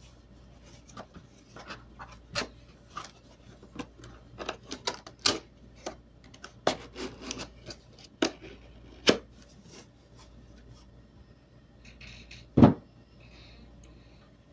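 Hands handling unboxing packaging and papers: a run of irregular clicks and light taps, then one loud knock near the end.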